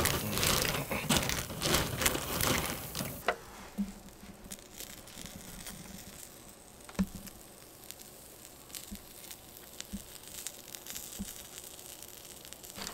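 Plastic bag crinkling and cockle shells clattering onto a wire grill for about three seconds as raw cockles are tipped out and spread. Then the cockles grill over charcoal with a faint crackle and a few sharp ticks.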